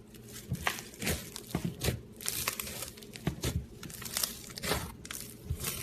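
Slime being squeezed and poked by hand, giving an irregular run of sharp clicks and pops, several a second.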